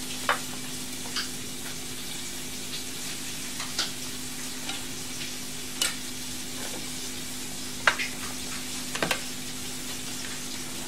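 Cucumber slices dropped by hand onto a salad in a large ceramic bowl: a handful of light, sharp taps a second or two apart, over a steady low hum and hiss.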